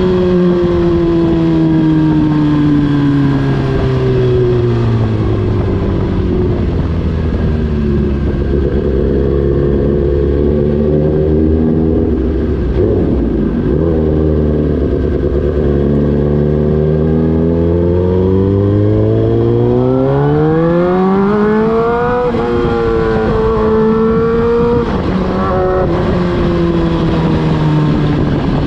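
Suzuki GSX-R 1000's inline-four engine through an Austin Racing aftermarket muffler, running continuously. The exhaust note drops in pitch over the first few seconds, holds fairly steady, then climbs smoothly for several seconds a little past the middle before levelling off.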